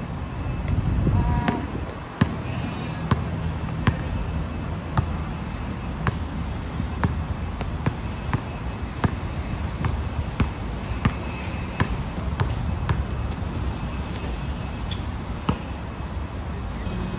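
A basketball being dribbled on a hard outdoor court, sharp bounces roughly once a second. A louder knock with a brief ring comes about a second in.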